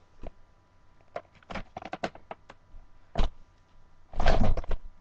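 Scattered clicks and knocks of things being handled, with a sharp knock about three seconds in and a louder rustling thump about four seconds in. No vacuum motor is running.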